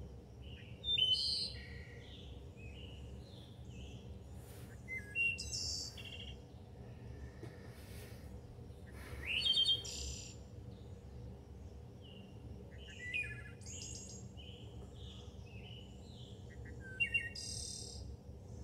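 Birds chirping and singing in short bursts of high, gliding calls, loudest about a second in, around nine seconds in and near the end, over a low steady hum.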